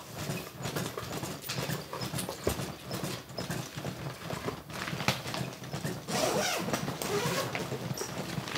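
Rhythmic clicking and knocking of manual chest compressions on a CPR training manikin, mixed with rustling and clatter as the board and parts of a mechanical chest compression device are unpacked from a padded carry bag.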